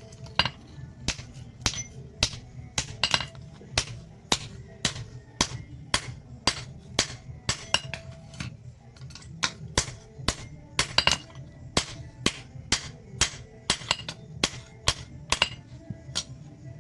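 Blacksmith's hammer striking steel on an anvil in a steady rhythm, about one and a half blows a second, each blow ringing briefly.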